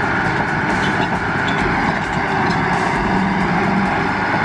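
Caterpillar D6H crawler dozer running steadily: a constant diesel engine and machine noise with no change in pitch.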